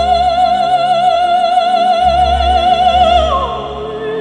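Orchestral film score: an operatic soprano voice holds one high note with wide vibrato, then slides down to a lower note about three seconds in. A deep bass swells underneath.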